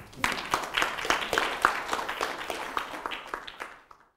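Audience applauding, many hands clapping together; the applause fades near the end and then cuts off.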